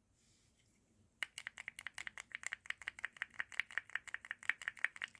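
Keyboard fidget with creamy switches being pressed rapidly: a fast run of faint clicks starting about a second in.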